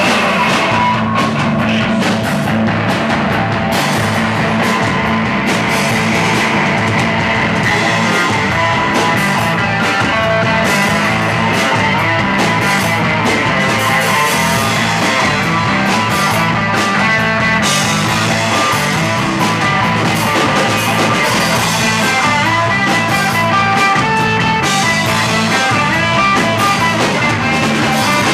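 Live rock band playing loud: electric guitar, electric bass guitar and drum kit.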